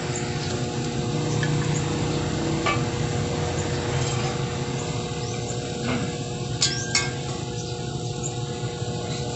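A few light metallic clinks as a motorcycle exhaust pipe and muffler are handled and set into place. The loudest is a close pair about seven seconds in. Under them runs a steady background hum.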